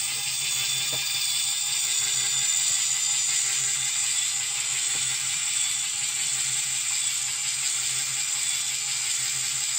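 LEGO Technic motor running steadily, turning plastic gears and a crank linkage that slides a computer mouse back and forth: a constant whir with a mechanical clatter of gears.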